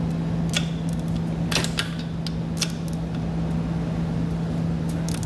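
Ratchet head of a torque wrench clicking a few times, irregularly, as the air spring's upper bracket bolts are tightened down. A steady low hum runs underneath.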